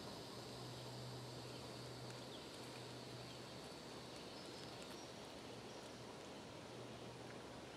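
Faint outdoor background: a steady hiss with a low hum that comes and goes, and a few faint high chirps about halfway through.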